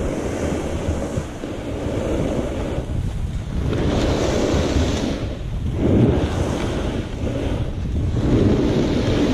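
Snowboard sliding down groomed snow, its edge scraping and hissing in surges that swell and fade several times as it turns, mixed with wind buffeting the action camera's microphone.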